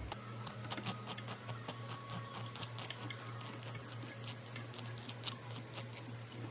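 A plastic welder working a cracked plastic grass catcher: many small irregular ticks and crackles over a steady low hum.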